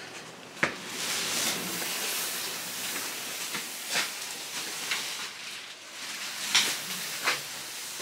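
A steady hiss, with a few sharp clicks and knocks spread through it.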